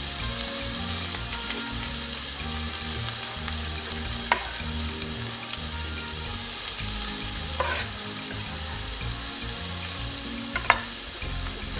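Chopped onion and red pepper sizzling steadily in hot olive oil in a stainless steel frying pan, the start of caramelizing them. Three brief sharp taps cut through the sizzle, about four, seven and a half and ten and a half seconds in.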